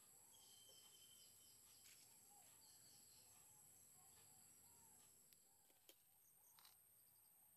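Near silence: quiet outdoor ambience with faint birds chirping now and then and a few soft clicks.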